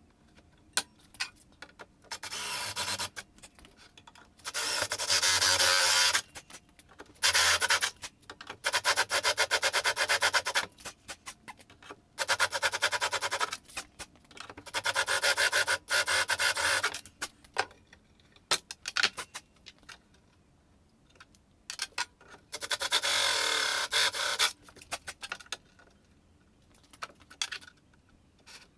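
Cordless drill boring concealed-hinge cup holes into a particleboard cabinet door through a clamped drilling jig, in about seven bursts of one to three seconds each. Clicks and knocks of the clamp and jig being handled fall between the bursts.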